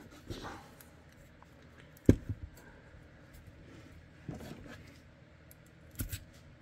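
Hands handling holster-making materials on a workbench: soft rustling and small knocks, with one sharp knock about two seconds in.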